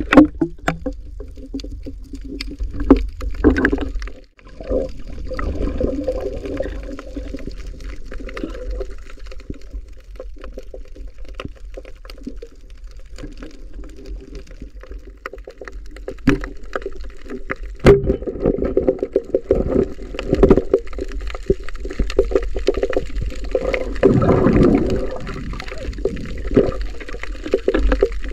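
Water heard underwater as the diver swims: a steady low rumble with surging, gurgling water movement that swells and fades, and many scattered sharp clicks.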